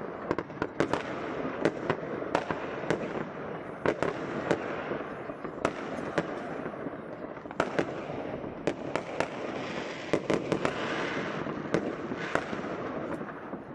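Many fireworks and firecrackers going off at once: sharp bangs at irregular intervals, several a second at times, over a constant wash of more distant explosions.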